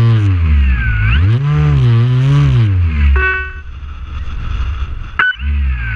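RC plane's motor and propeller running, its pitch dipping and rising as the throttle is worked on the landing approach, then dropping away about three seconds in. A sharp click comes about five seconds in, and the motor's wavering pitch returns near the end.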